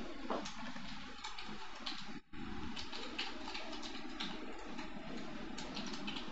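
Computer keyboard keys clicking in irregular runs of typing, over a steady low background hum.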